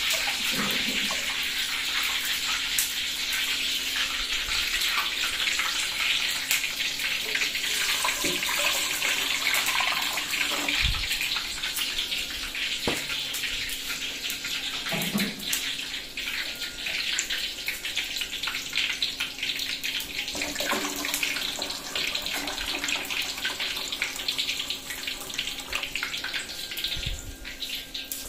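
Steady rushing hiss of a pot of water boiling hard over a gas burner. A few short metal clanks of pots come in around the middle.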